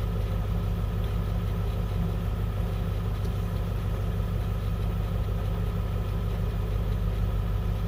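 International school bus's diesel engine idling steadily, a low even drone with no change in speed.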